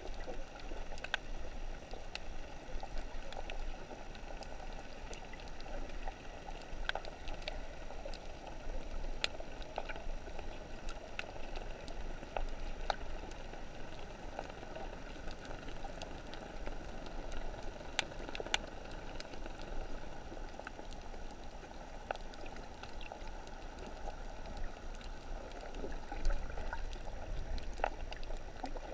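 Underwater ambience picked up by a GoPro inside its waterproof housing: a steady, muffled water hiss with scattered sharp clicks.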